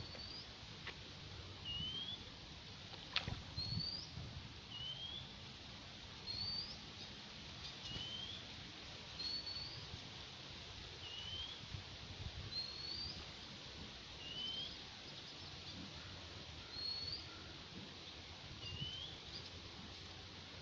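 A bird calling over and over with short, rising whistled notes, about one every second and a half, alternating between a higher and a lower note. A few sharp clicks come in between, the loudest about three seconds in.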